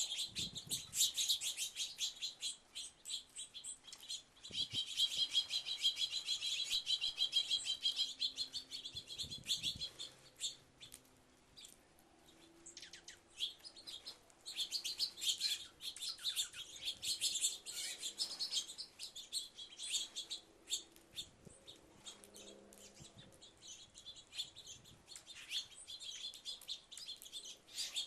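A flock of small birds chirping and twittering in rapid, overlapping calls. The chatter thins out for a few seconds about halfway through, then picks up again.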